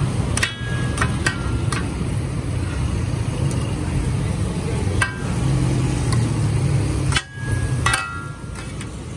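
Metal spatula blades clinking against a steel griddle as stacked flatbreads are chopped into pieces: sharp metallic clinks, each ringing briefly, several in the first couple of seconds and more toward the end. A steady low rumble runs underneath.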